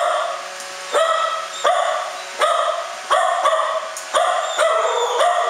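A dog barking over and over, about eight barks under a second apart, each ringing on briefly in a hard-walled kennel room.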